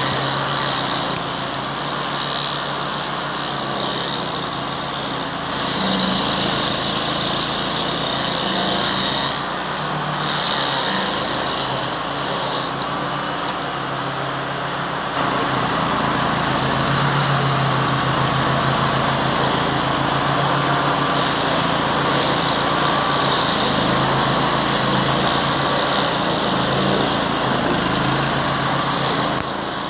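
A Red Roo SHP400 stump grinder's Kohler petrol engine running at working speed while its cutter wheel grinds through a date palm stump, throwing out chips. The sound is a continuous engine drone mixed with grinding, dipping slightly in level a few times.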